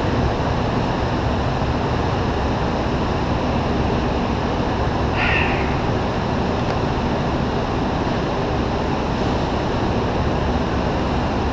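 Steady, loud rushing background noise of a large indoor go-kart hall, with one brief high-pitched sound about five seconds in.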